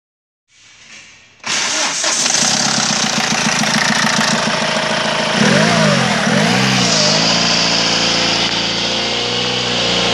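A 2015 Hyundai iLoad 2.5-litre four-cylinder common-rail turbodiesel starts about a second and a half in and settles into a steady idle. It is revved briefly twice, the pitch rising and falling each time, then returns to idle. The engine is running as it should on an engine test.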